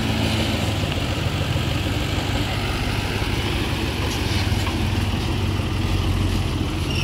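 Tractor's diesel engine running steadily at an even speed.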